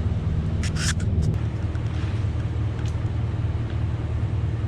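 Vehicle engine idling steadily, with a brief hiss about a second in.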